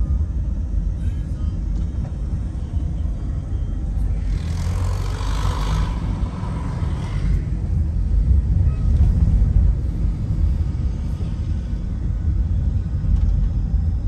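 Steady low rumble of a car's road and engine noise heard from inside the moving car, with a hissing swell about four to seven seconds in.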